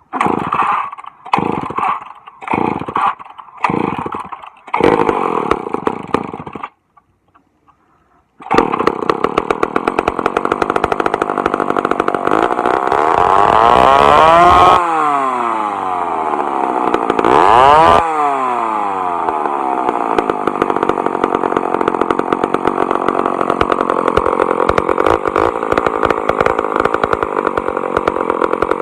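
McCulloch Mac 10-10 Automatic two-stroke chainsaw being pull-started: about six short bursts of noise in quick succession, then a pause, then the engine catches. It is revved up twice and falls back, then runs steadily.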